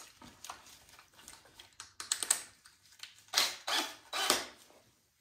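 Metal hand tools clicking and rattling in several short bursts, the loudest clusters about two seconds and three and a half to four and a half seconds in.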